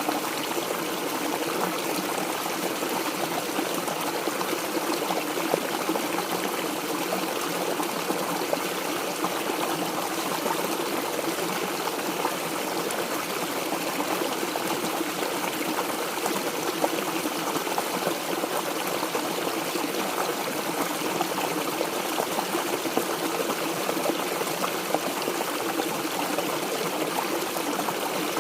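Mountain stream running steadily over rocks, a continuous trickling and splashing.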